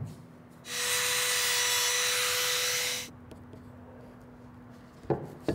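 A woodworking power tool working a small piece of wood: a loud hiss over a steady motor hum for about two seconds, after which the hum runs on alone. Two short knocks near the end.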